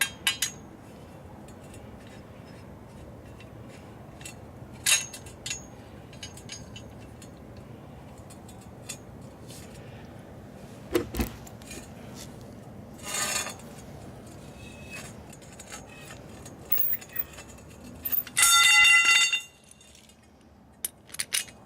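Scattered metallic clinks and knocks from metal parts being handled, with a brief ringing metallic clang near the end, the loudest sound here.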